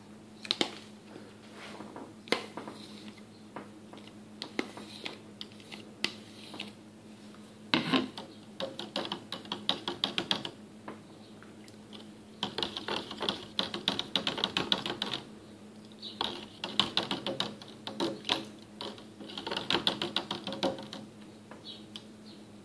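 Spoon stirring mayonnaise into water in a plastic cup. It starts with a few single taps, then comes in four bursts of rapid ticking against the cup walls, each a few seconds long.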